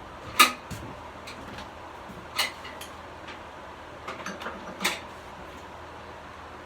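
A few sharp knocks and clicks from tools and parts being handled on a VW engine during teardown. The loudest comes right at the start, another a couple of seconds later, then a run of lighter clicks ending in one more knock; after that only a steady low background.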